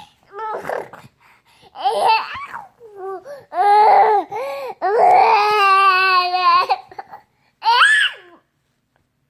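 A nine-month-old baby boy making loud vocal noises and babbling: a string of short calls, then one long, wavering sound held for nearly two seconds about five seconds in, and a short rising one near the end.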